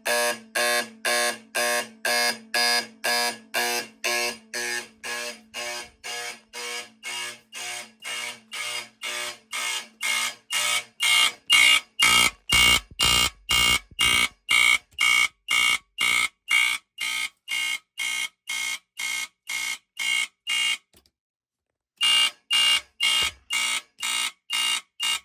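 A Simplex 4040 fire alarm sounder and a Firex FX1020 smoke alarm sounding together on a fire alarm panel's march-time signal: rapid, even pulses, about two to three a second. The pulsing stops for about a second near the end, then resumes.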